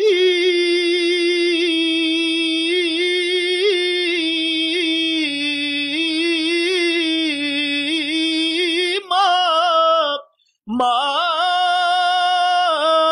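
A single voice singing an Arabic naat unaccompanied, holding one long ornamented note with small wavering turns for about nine seconds. After a short phrase and a brief pause it starts the next line.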